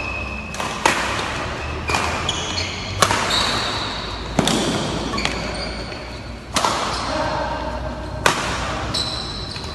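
Badminton doubles rally: sharp racket strikes on the shuttlecock, about eight in a row, roughly one every second, echoing around a large hall. Short high shoe squeaks on the court floor come between the strikes.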